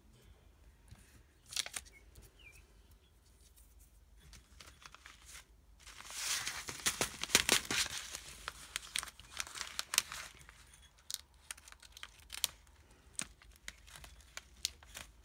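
Clear plastic page protector filled with sequins, crinkling and crackling as it is handled and pressed flat. It starts with scattered small clicks, and the crackling is densest and loudest from about six to ten seconds in.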